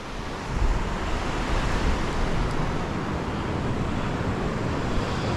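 Steady wash of surf breaking on the beach, with wind buffeting the microphone as a low rumble from about half a second in.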